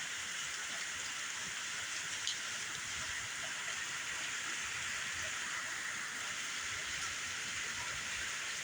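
Steady rain falling, a continuous even hiss of drops, with one small tick about two seconds in.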